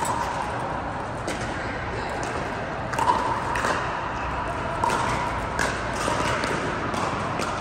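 Indoor hall ambience of pickleball play: sharp pops of paddles striking the plastic ball at irregular intervals from the courts, over a steady hiss with faint voices. There are a couple of short squeaks about three and five seconds in.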